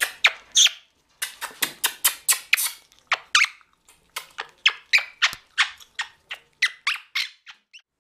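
Monk parakeet giving a rapid run of short, sharp squeaks, about three or four a second, while being scratched through the cage bars; the squeaks stop shortly before the end.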